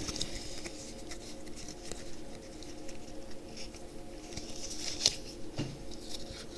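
Faint rustling and small clicks of a foil trading-card booster pack and its cards being handled, with one sharper tick about five seconds in, over a faint steady hum.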